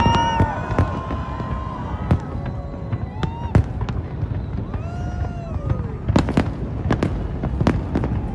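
Aerial fireworks display going off: a steady rumble of distant bursts with sharp bangs and cracks at irregular intervals, several a second at times.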